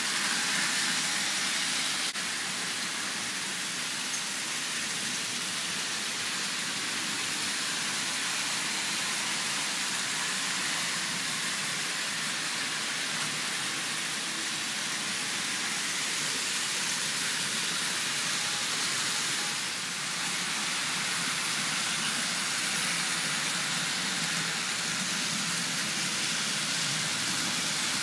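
Several Märklin HO model trains running at once on metal three-rail track: a steady whirring hiss of their electric motors and wheels rolling over the rails.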